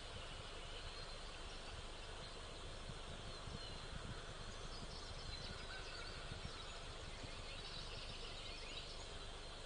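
Faint, steady background noise, an even hiss, with a few faint short chirps now and then.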